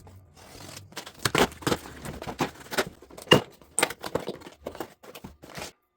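A quick, irregular series of clicks, taps and rustles, some much louder than others, that stops abruptly near the end.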